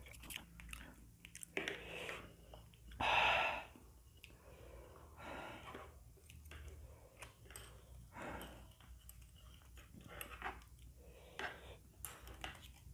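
Close-up chewing of fried instant noodles (Indomie mi goreng), with scattered light clicks of a metal spoon and chopsticks against a plastic plate. A short, louder hiss comes about three seconds in.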